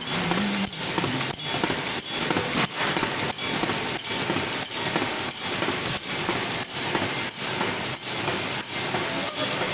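Bobst Visionfold folder-gluer running at production speed, folding and gluing popcorn carton blanks as they pass along its belts: a dense, steady mechanical din with a regular beat about every two-thirds of a second.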